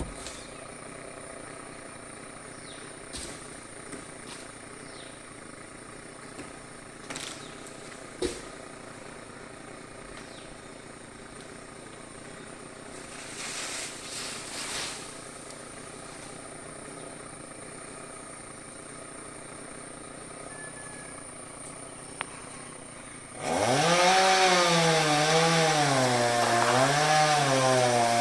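A low, steady engine hum with a few scattered knocks. About 23 seconds in, a chainsaw revs up loudly, its pitch wavering up and down as it cuts into wood.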